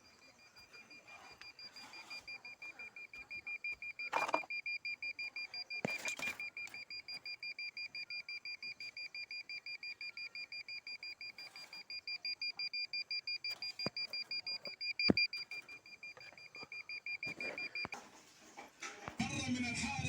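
Satellite finder meter giving a fast, even train of high beeps, its signal tone as the dish picks up the satellite, with a few sharp knocks as the dish is handled. The beeping cuts off near the end, and music comes in.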